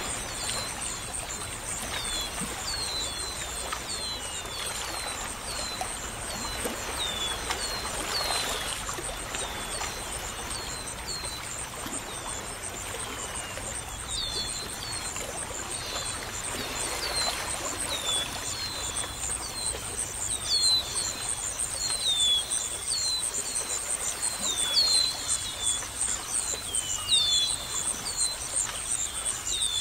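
Nature ambience of small birds chirping in short, quick falling chirps, busier and louder in the second half, over a steady high-pitched drone and a soft hiss like running water.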